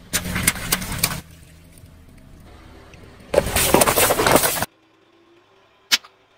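Car tyre rolling over water-filled balloons and bursting them, with two loud stretches of rushing, splashing water. A quiet engine rumble runs between them, and a single short sharp crack comes near the end.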